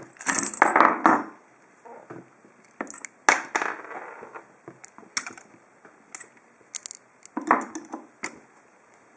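A lock pick hook and tension wrench working in the pin-tumbler keyway of a Lockwood 301/63 padlock: small sharp metallic clicks and scrapes as pins are raked and set. Louder metal rattles come in the first second, about three seconds in, and again near the end.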